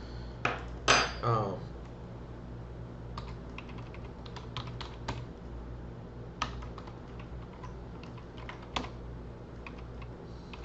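Computer keyboard typing: scattered, irregular keystroke clicks over a steady low hum. A brief vocal sound about a second in is the loudest moment.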